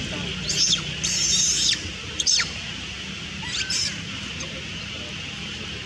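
A young monkey crying with shrill, high-pitched squeals, four calls in quick succession, the second the longest, some dropping in pitch at the end.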